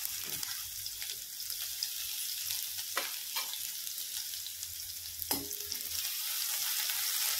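Crushed garlic and ginger with cumin sizzling in hot oil in a non-stick kadhai, a steady crackling hiss. A steel spoon knocks against the pan a few times in the second half.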